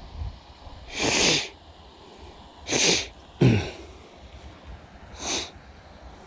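A person's loud, breathy bursts of breath, four of them a second or two apart. The third is the sharpest and ends in a short falling voiced sound, in the manner of a sneeze.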